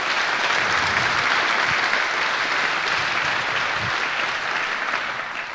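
Audience applauding, holding steady and then tapering off near the end.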